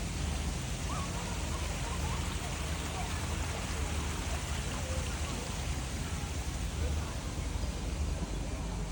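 Steady rushing outdoor noise with a low rumble underneath, and faint distant voices.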